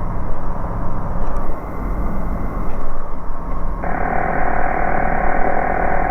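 Steady drone of a light aircraft's engine and propeller heard through the cockpit intercom. About four seconds in, a steady whining tone with hiss comes on over the radio and holds: radio interference, which the pilot takes for interference from someone on the ground.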